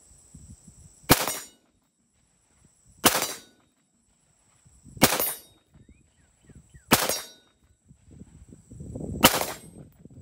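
Ruger AR-556 rifle firing five single semi-automatic 5.56 mm shots, about two seconds apart.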